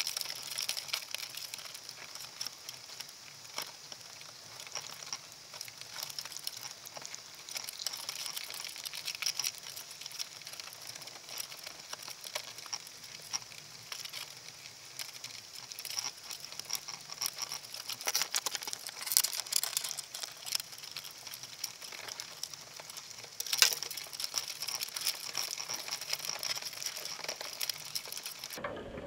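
Underwater crackling and fine clicking, with a few sharper clicks now and then, as Dungeness crabs clamber over the plastic bait cups and wire mesh of a crab pot. The crackling stops abruptly at the very end.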